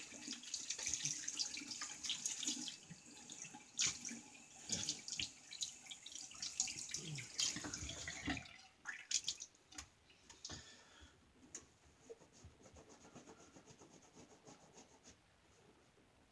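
Tap water running into a sink while a boar shaving brush is rinsed out, with splashes and sharp knocks. About halfway through, the running water stops, leaving only small clicks and drips.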